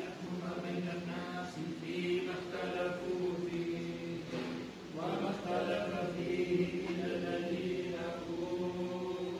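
A single voice chanting in the Islamic manner, holding long, wavering melodic notes, with a short pause for breath about four and a half seconds in.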